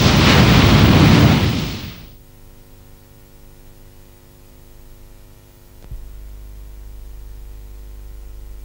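Loud hissing rush of noise from an old archive-film soundtrack, which fades out about two seconds in. A faint, steady electrical hum follows, with a single click a little before six seconds, after which a low hum is slightly louder.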